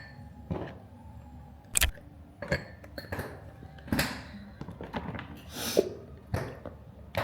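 A string of irregular knocks, thuds and clinks from kitchen utensils, dishes and containers being handled and set down during meal prep.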